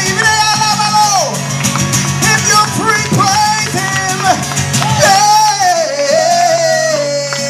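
Live worship music: a male singer's voice gliding through sung runs over guitar accompaniment, then holding one long note that slowly sinks from about five seconds in.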